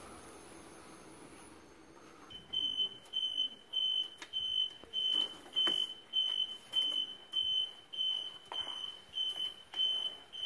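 Electronic timer beeping from a bakery deck oven: a single high tone pulsing evenly, nearly two beeps a second, starting about two seconds in. A few sharp knocks of the metal baking tray and peel fall between the beeps.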